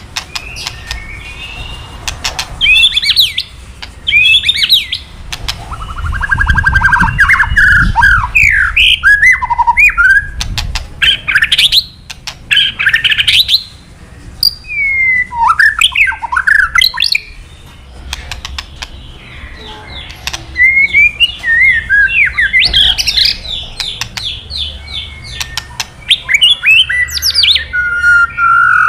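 White-rumped shama (murai batu) singing in loud bursts of varied phrases: fast up-and-down whistled sweeps, quick trills of evenly spaced notes, and dry crackling clicks. This 'kretekan' crackle is used to provoke male shamas into answering.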